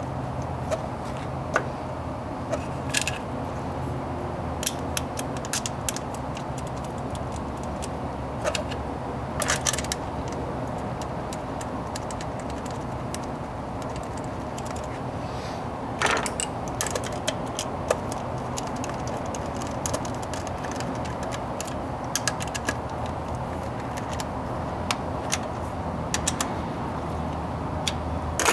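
Irregular light clicks and clinks of hand tools and plastic ignition parts as a distributor cap and spark plug wires are fitted, more frequent in the second half, over a steady low hum.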